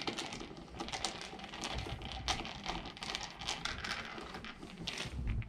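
Dense, irregular light clicking and tapping, many small clicks a second with a few louder taps, like hands working small parts and tools on a computer's case.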